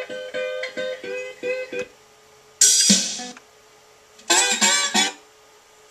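Guitar music playing from a USB stick through an original Chevy C10 radio converted for USB, chopped into snippets as the tuner knob skips between songs. About two seconds of single plucked guitar notes, then two brief bursts of other songs with short quiet gaps between.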